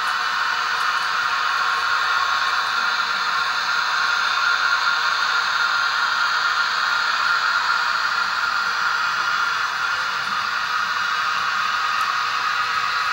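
Model DB class E 50 electric locomotive running slowly on the track: a steady whirring hiss from its motor, gears and wheels on the rails, with a faint hum of tones in it.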